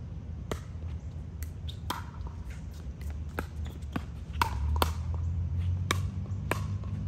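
Pickleball rally: paddles hitting a plastic pickleball and the ball bouncing on the court, about ten sharp knocks at uneven intervals. Underneath is a steady low rumble that grows louder about halfway through.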